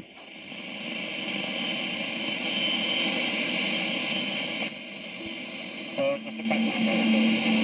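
CB radio receiving on AM: hiss and static from its speaker, easing off a little before five seconds in. Near the end come faint broken voice fragments and a steady low tone.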